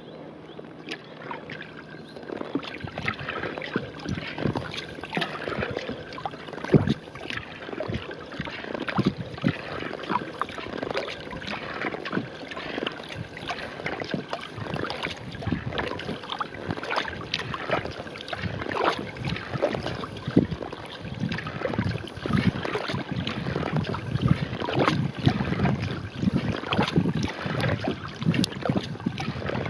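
Kayak paddling strokes: a narrow wooden paddle dipping into and pulling through calm lake water beside a skin-on-frame kayak, with irregular splashes and drips. The strokes grow louder about two seconds in.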